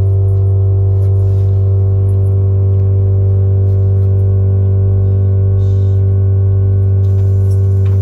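Loud, steady electrical hum with a stack of overtones inside the stationary maglev train car, cutting off suddenly near the end, followed by a brief low rumble.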